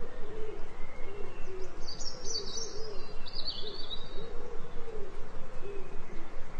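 Bird calls: low hooting calls repeating over and over, with a brief burst of high twittering from about two seconds in.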